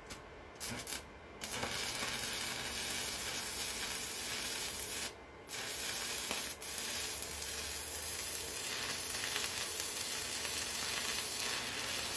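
Electric welding arc from a YesWelder Arc 205 welder. A few short crackles come as the arc is struck, then it settles into a steady sizzle like frying bacon. The arc stops briefly about five seconds in and is struck again.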